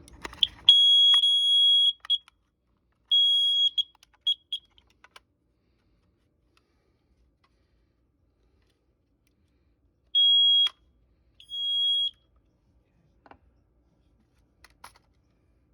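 Kidde carbon monoxide alarm beeping at a single high pitch in irregular bursts: a beep of over a second with shorter chirps near the start, then two more beeps about ten seconds in. The beeping is the sign that the freshly battery-powered alarm is working properly. A few faint clicks follow near the end.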